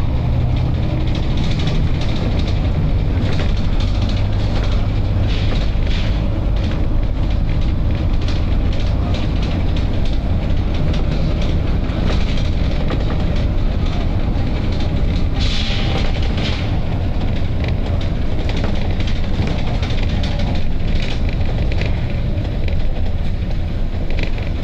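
Volvo B9TL double-decker bus's diesel engine idling with a steady low rumble, while its compressed-air system gives repeated short hisses; the longest and loudest hiss, about a second, comes a little past the middle.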